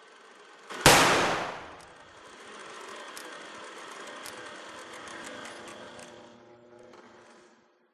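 A single loud gunshot about a second in, dying away over about a second. It is followed by a crackling, humming glitch noise with scattered clicks and steady tones, which fades out and cuts off just before the end.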